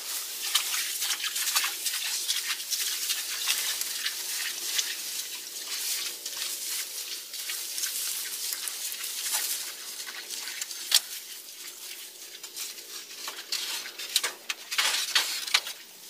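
Camouflage netting rustling and crackling as it is pulled and draped by hand, with a sharp click about eleven seconds in and a burst of denser crackling near the end.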